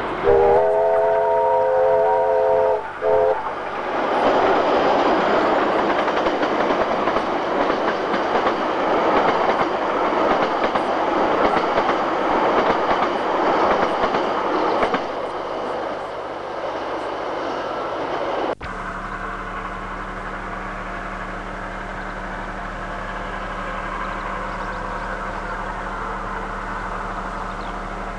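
The whistle of steam locomotive J1211 sounds a chord for about three seconds as it approaches. The train then runs close past with a loud rushing rattle of wheels and carriages that eases off about 15 seconds in. After a cut about 18 seconds in, a quieter steady background with a low hum remains.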